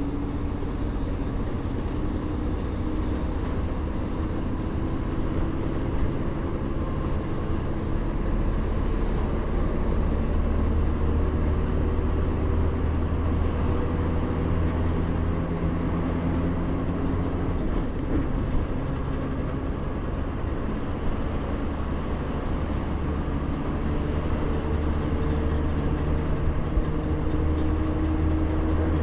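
A bus's engine and road rumble as the bus drives along. The engine note sinks slowly through the middle and climbs again over the last few seconds.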